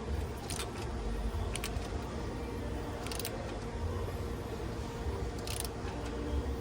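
Ratchet wrench turning the engine's crankshaft over by hand to bring the cam timing marks into line: a few scattered sharp clicks over a steady low hum.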